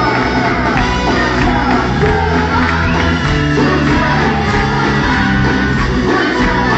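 Live blues-rock band playing loudly in a hall, with electric guitar, bass and drums under singing voices, recorded through a mobile phone's microphone.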